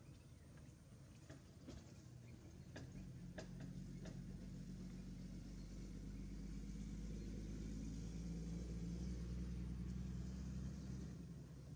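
A low motor hum that swells about three seconds in and eases off near the end, with a few light clicks before it.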